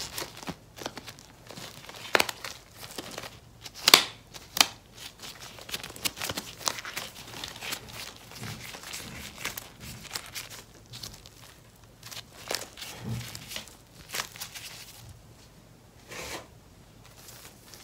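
Thin white gloves of a hand mask pack crinkling and rustling as they are pulled on and worked over the hands, with irregular sharp crackles. The loudest crackle comes about four seconds in.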